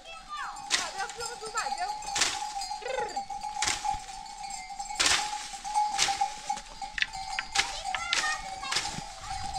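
A long wooden stick beating the branches of a wild pistachio tree, about ten sharp knocks with leaf rustle, roughly one a second, to knock the nuts down. Bleating from a flock of sheep and goats in between.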